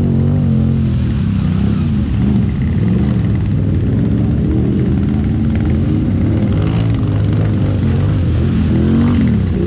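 ATV engine running under load and revving, its pitch rising and falling.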